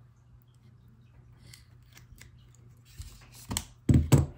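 Plastic pry tool clicking and scraping as it levers at an iPhone 2G battery held down by glue: faint ticks at first, then a few loud scrapes and knocks near the end.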